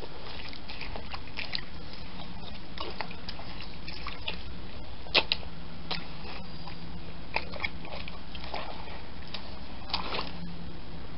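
Ballet flats squelching and sucking in wet mud as the feet tread and shift, with a few short sharp wet smacks about halfway through and again near the end, over a steady background noise.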